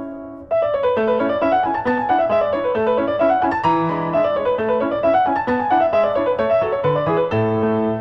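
Background piano music: flowing runs of notes rising and falling over a steady accompaniment, with a short break about half a second in before it starts again.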